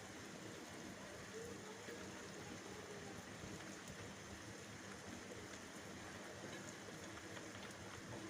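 Steady rain falling, a soft even hiss with faint scattered drop ticks.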